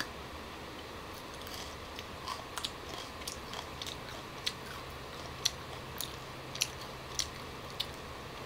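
A young green tamarind pod being bitten and chewed up close. Short, crisp crunches come roughly every half second to a second, from the crisp, unripe pod.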